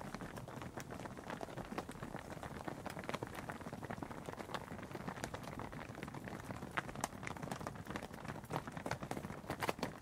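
Hooves of a few cattle walking on tarmac: irregular sharp clops, several a second, with a couple of louder strikes in the second half.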